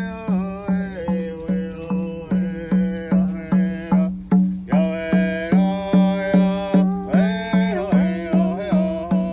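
Singing to a steady drumbeat, about two and a half even beats a second, with the sung melody sliding between notes over the beat.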